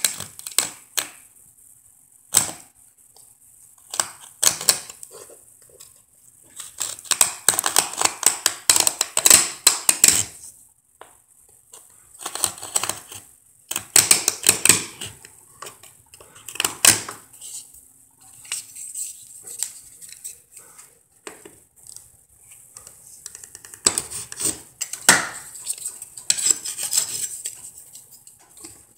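Metal putty knife blade scraping and gouging along a stress crack in a wall, cutting it into a V to take joint compound. It comes as runs of short gritty scraping strokes with pauses between them.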